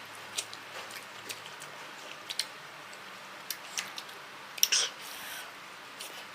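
A person eating instant noodles: chewing with scattered small clicks and smacks, and a louder noisy burst about five seconds in.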